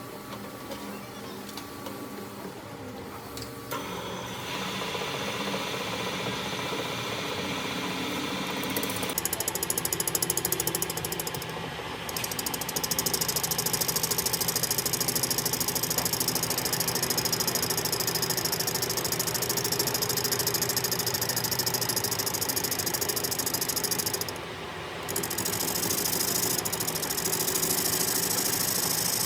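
Metalworking machinery running steadily with a constant hum. It gets louder in steps, and from about nine seconds in a harsh hissing noise is added. The hiss breaks off briefly twice, the second time near 24 seconds, then resumes.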